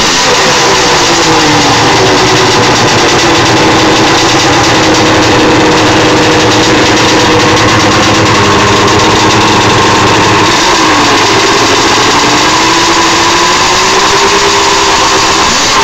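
Yamaha SRX 700 snowmobile's three-cylinder two-stroke engine running loud and steady at a fast idle. Its pitch settles after a small rev near the start, then dips and climbs again about two-thirds of the way through.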